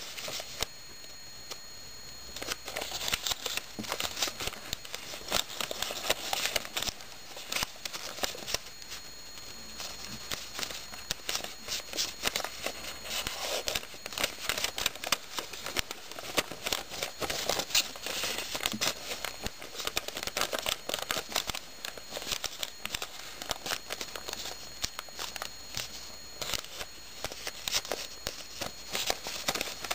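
A sheet of paper rustling and crinkling in the hands as it is folded and creased into a Sonobe origami unit: dense, irregular crackles and rubs. A faint high steady whine sits under it for roughly the first nine seconds.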